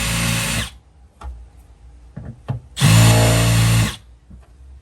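Power drill running a large bit in reverse against a fibreglass boat deck, cutting only through the gel coat around a screw hole so it won't crack. Two short runs: the first stops under a second in, the second lasts about a second near three seconds in, with light clicks between.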